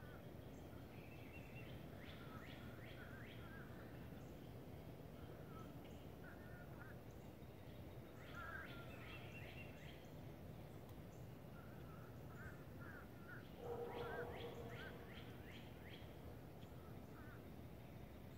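Faint birds calling: a few short runs of quick chirps, the loudest a little after halfway, over a low steady background hum.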